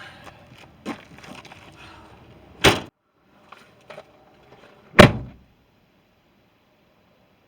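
Two car doors slammed shut, about two seconds apart, the second the louder, after some light footsteps and rustling.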